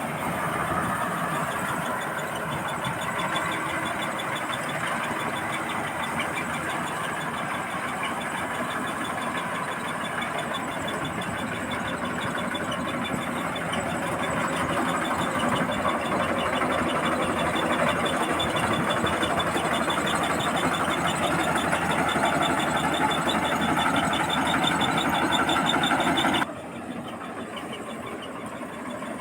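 Combine harvester running steadily while harvesting rice, a dense engine and machinery noise with a fast ticking rattle in it. Near the end it drops suddenly to a lower, thinner level.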